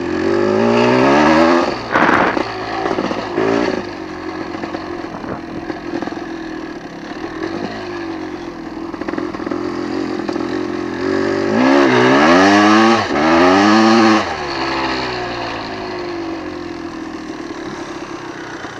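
Dirt bike engine revving hard in the sand, its pitch sweeping up and down: a few loud bursts near the start, a steadier, fainter run in the middle, then a second loud stretch of revving about twelve seconds in before it drops back and settles.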